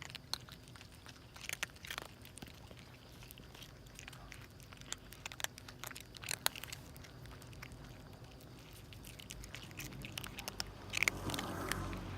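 Stray cats eating hungrily, with many small irregular crunches and chewing sounds. A louder scrape comes near the end over a low background rumble.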